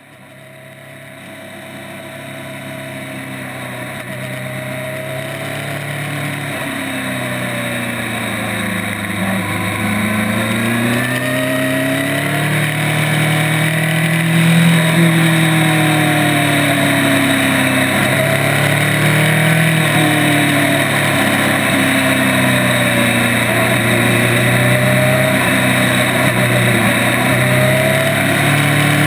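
Honda CB1000's inline-four engine running under way, its pitch rising and falling again and again as the bike speeds up and slows through curves, over a steady hiss of wind and road noise. The sound fades in over the first few seconds.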